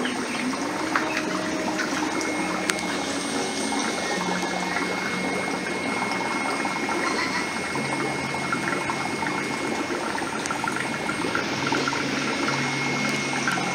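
Steady running, trickling water in aquarium tanks, from the tanks' water circulation.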